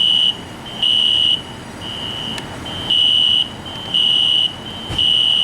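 Fire alarm sounding in an apartment building: a high-pitched beep repeating about once a second, each beep about half a second long, with a fainter tone carrying on between beeps.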